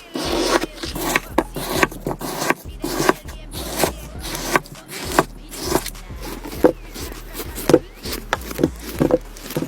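Slime being handled, giving irregular sharp popping clicks, about two to three a second.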